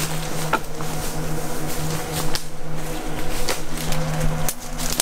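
Brush swishing and twigs snapping as people push quickly on foot through dense leafy undergrowth. Under it runs a steady low drone of boat motors on the river.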